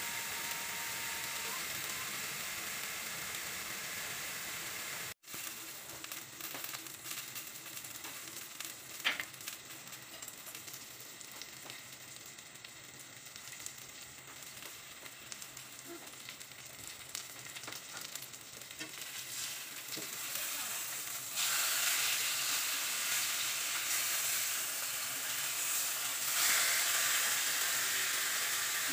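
Salmon steaks sizzling in a dry nonstick wok, frying in their own fat with no oil, with scattered small crackles. The sizzle grows louder in the last third.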